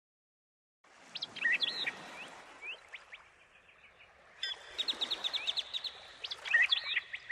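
Birds calling and chirping over a soft outdoor hiss, after about a second of silence. About four and a half seconds in, the background grows a little louder and a fast run of short chirps begins.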